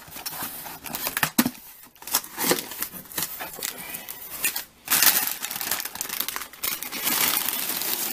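Packaging being pulled open and rustled off a nylon camera bag: a run of sharp crackles, denser and steadier from about five seconds in.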